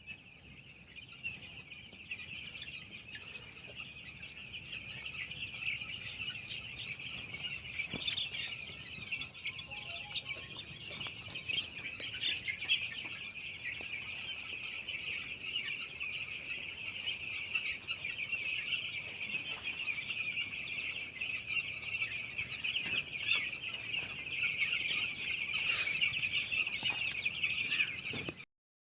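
A flock of baby chicks peeping nonstop, many high chirps overlapping into a dense chorus, with a steady high whine underneath.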